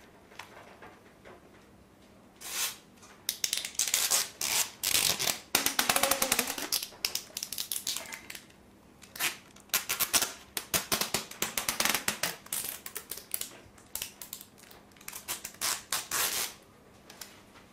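High-temperature Teflon tape being pulled off its roll and wrapped round a cast, a crackling, rapid ticking rip in several long pulls with short pauses between them.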